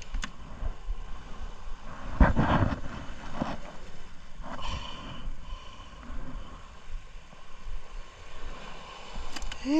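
Handling noises of fish being picked from a fishing net on a boat deck: rustling, scraping and knocks, the loudest a rustling clatter about two seconds in. A short vocal call is heard at the very end.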